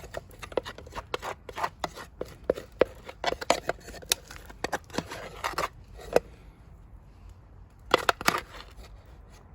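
Quick irregular clinks and scrapes on an aluminium hangō mess tin holding freshly cooked rice, in a dense run for about six seconds, then a short burst again about eight seconds in.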